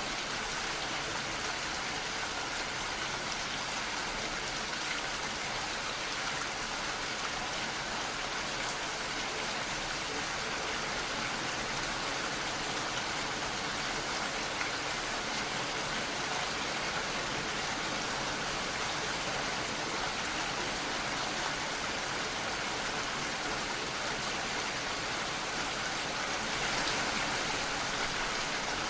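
Steady rain falling, an even hiss of many drops with no pauses or changes.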